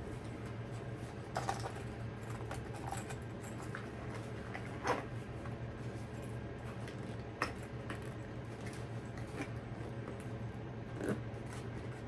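Small toiletry bottles and a little bag being handled, giving scattered soft clicks and taps a few seconds apart over a steady low hum.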